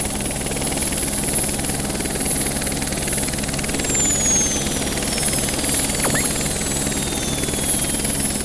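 A train running past: a steady rumble with a fast rhythmic clatter, and a high whine gliding slowly down in pitch. It fades out at the end.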